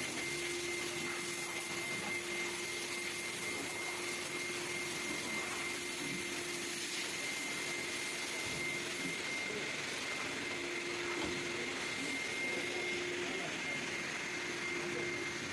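Vacuum cleaner running steadily, with a constant high whine over its rushing noise.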